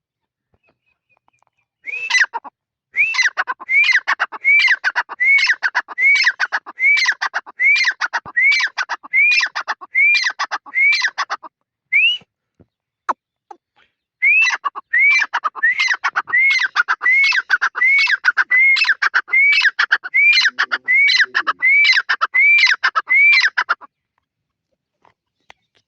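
Teetar (francolin) calling: loud, high notes that each rise and fall, repeated about one and a half times a second in two long runs, with a short break in the middle.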